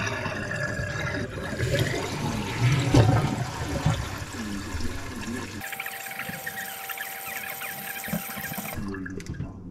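Toilet flushing as a freshly rebuilt tank is tested: water rushes down, loudest about three seconds in. The tank then refills with a steady hiss and a faint whine that cuts off abruptly near the end.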